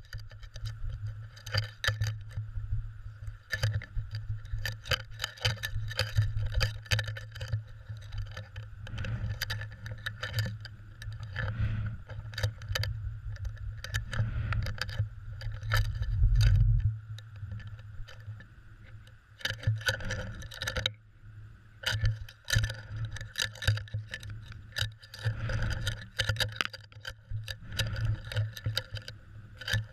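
Irregular rattling clicks and knocks from a cod jigger and its hook knocking against an underwater camera mounted on it as the line is jigged, over a steady low hum.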